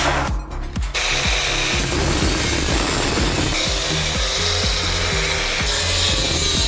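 A tool grinding or rasping steadily, starting about a second in, with a faint high whine in the noise. Background music plays underneath.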